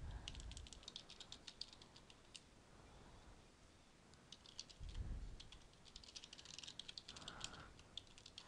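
Faint typing on a computer keyboard: two runs of rapid keystrokes with a pause of about two seconds between them.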